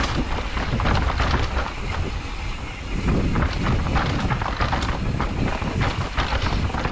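Bicycle rattling and clattering down a rough dirt trail, its wheels knocking over timber-edged steps, with tyre noise on dirt and a steady wind rumble on the microphone.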